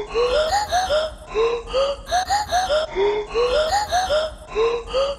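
Intro music made of short, rising, voice-like chirps in a bouncy pattern that repeats throughout.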